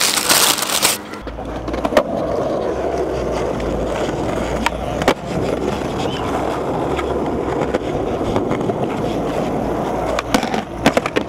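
Skateboard wheels rolling on smooth concrete, a steady rumble, broken by sharp clacks of the board's tail and wheels hitting the ground during flatground tricks: one about two seconds in, two around five seconds, and several in quick succession near the end. It opens with about a second of a paper bag crinkling.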